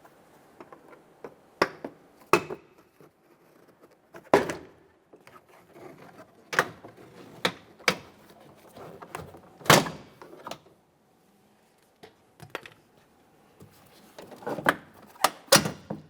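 Door-panel push clips snapping loose one after another as a Chevrolet Silverado's rear door trim panel is pried off the door: about ten sharp snaps and knocks at uneven intervals, with quieter rubbing of the plastic panel between them.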